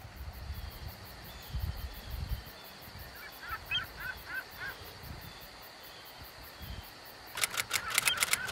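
Geese honking: a loud run of calls begins about a second before the end, after a short series of fainter bird calls in the middle. A low, irregular rumble runs underneath.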